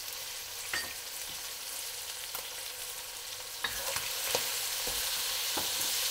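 Chicken pieces sizzling in a seasoned steel wok while a wooden spatula stirs them, scraping and knocking against the pan now and then. The sizzle grows louder a little past halfway, and the knocks come more often.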